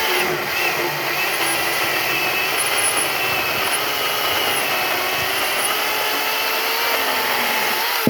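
Ridgid 18-volt cordless chainsaw with a 12-inch bar running steadily and cutting wood, its electric motor whine dipping and recovering in pitch as the chain bites.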